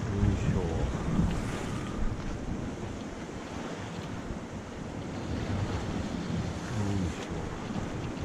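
Sea surf washing against shore rocks, with wind buffeting the microphone.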